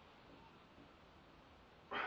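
Near silence, then near the end a sudden loud burst of forced breath from a lifter straining as he begins pressing a loaded barbell overhead.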